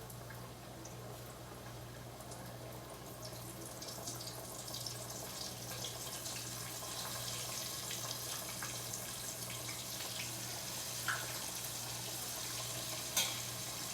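Floured pork chops sizzling in hot grease in a frying pan: a crackling, spitting hiss that grows louder a few seconds in. A steady low hum runs underneath, and a sharp click comes near the end.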